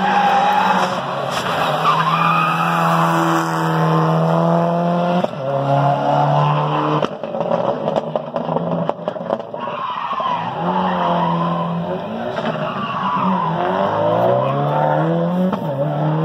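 Rally car engine at full throttle on a special stage. Its pitch holds high, drops sharply with each lift or gear change and climbs again, rising steeply near the end.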